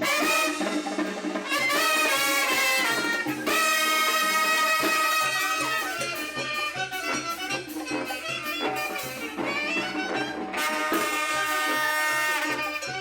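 Music led by a brass section (trumpets, trombones and saxophone) playing held chords and phrases over a steady, repeating bass beat.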